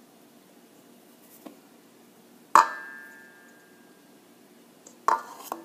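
Kitchenware knocked once against a mixing bowl, about two and a half seconds in, with a short ringing clink that fades, while flour is added to the dough; a couple of softer knocks near the end.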